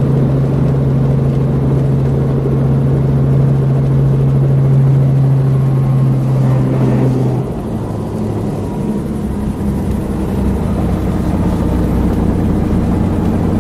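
Helicopter's engine and rotor running in flight, heard from inside the cabin: a loud steady drone that settles slightly lower in pitch and a little quieter about halfway through.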